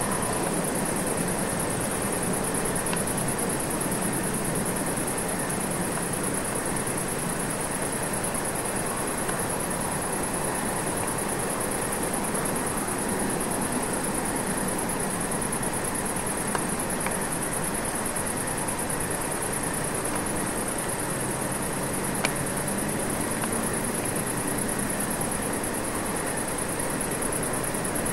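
Steady hiss and rumble of background noise with a thin high whine over it, broken only by two faint clicks about 16 and 22 seconds in.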